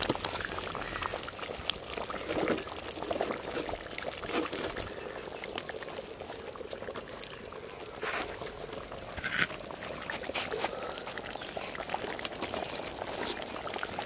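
Thick fish curry bubbling in a clay pot over a wood fire: a dense, steady crackle of many small pops.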